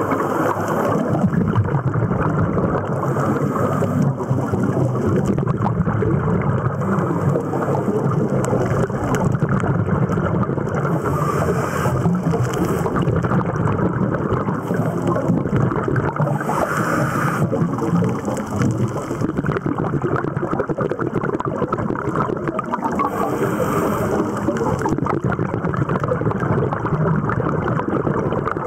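Muffled underwater rushing picked up by a waterproof compact camera's microphone (Olympus Tough TG-3). A hiss swells every four to six seconds, consistent with scuba divers exhaling through their regulators.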